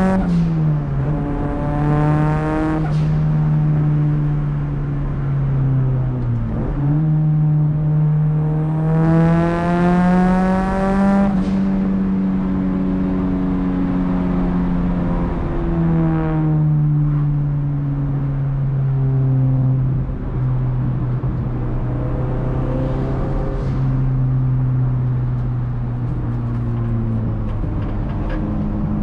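Nissan S13's big-turbo SR20DET four-cylinder, heard from inside the cabin under way. Its pitch climbs through two pulls with short dips at the gear changes, and each pull carries a rushing turbo hiss. It then settles to a steady lower cruise for the second half, with one short pull near the end.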